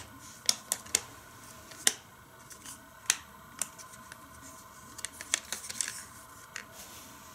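Hard plastic toy garage playset clicking and clacking as it is folded shut and handled: a series of sharp separate clicks, with a quick flurry of them about five seconds in.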